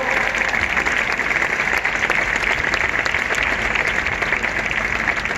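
Large audience applauding steadily: dense, even clapping.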